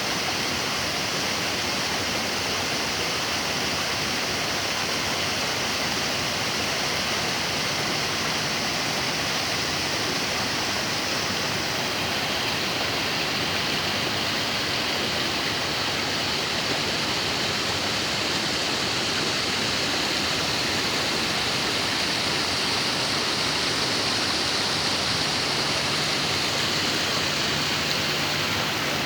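Steady rush of water from a waterfall and the stream running below it.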